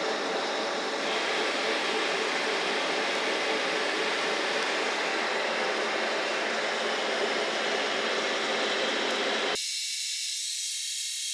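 Metal lathe turning aluminum bar stock under power feed: a steady whir and hiss of the spinning chuck and the cut. A little over nine seconds in the sound changes abruptly, its low part dropping out and leaving a thinner hiss.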